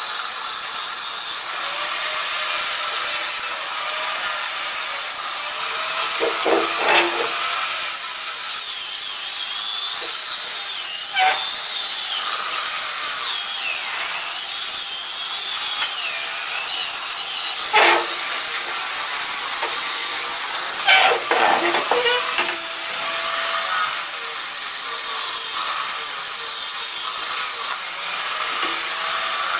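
Wood being sanded during the chair's refinishing: a steady abrasive rubbing with wavering high squeaks, broken by four sharp knocks.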